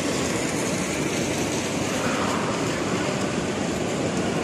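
Steady rushing ambient noise of a large indoor shopping hall, heard while walking, with no single event standing out.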